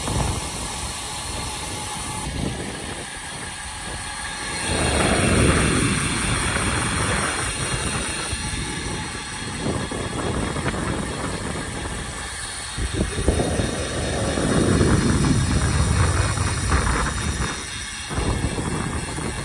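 Wind rushing over the camera microphone of a moving road bike, a steady noisy rush that swells louder twice, about five and fifteen seconds in.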